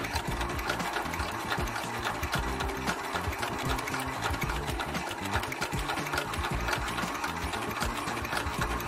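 Industrial cording sewing machine stitching a cord seam onto shoe leather, running steadily with a fast, even clatter of stitches.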